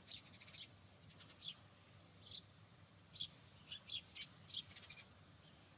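Faint songbird chirps: a scattered series of short, high calls over a quiet background.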